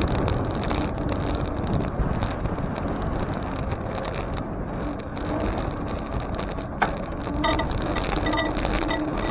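Steady wind on the microphone and road noise from a moving bicycle, with a single sharp click about seven seconds in.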